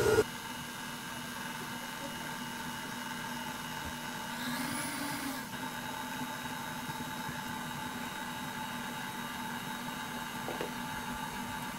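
Electric stand mixer running steadily, its motor humming as it kneads bread dough, with a brief swell about four seconds in.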